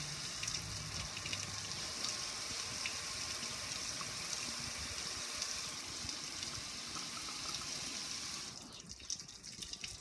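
Water spraying onto the metal lid of a gas grill and pouring off its edges in a steady hiss, which stops about eight and a half seconds in, leaving scattered drips and splashes.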